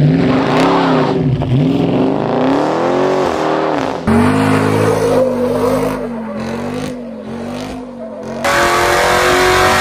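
Hemi V8 exhaust in a string of short clips. First a car accelerates hard, its engine pitch climbing and then dropping sharply at each of about four gear changes. About four seconds in comes a lower, wavering rev, and near the end a steady climb in pitch under full throttle.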